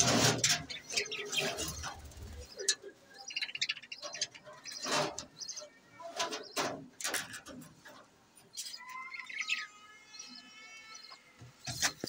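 A flock of budgerigars chattering: a run of short, sharp chirps and squawks. About two-thirds of the way in comes one longer warbling call that holds its pitch for a couple of seconds.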